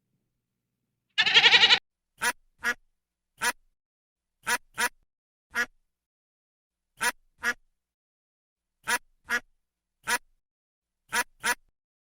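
Duck quacking: one longer quack about a second in, then a dozen or so short quacks, often in pairs, with silent gaps between them.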